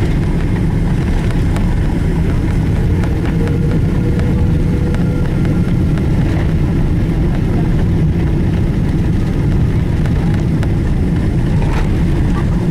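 Steady low rumble inside the cabin of a Boeing airliner during its landing roll, with spoilers deployed: runway and engine noise carried through the airframe.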